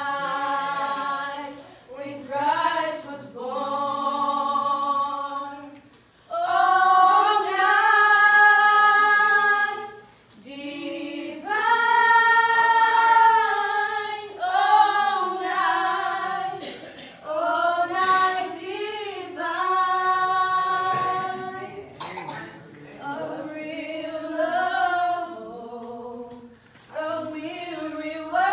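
A small group of girls singing unaccompanied in harmony into handheld microphones, in long held phrases broken by short breaths between lines.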